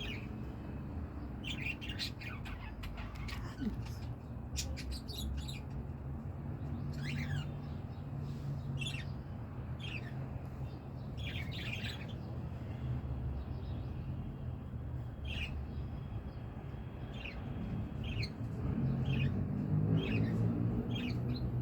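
Pet lovebirds chirping: a dozen or so short calls, scattered and often falling in pitch, over a steady low hum.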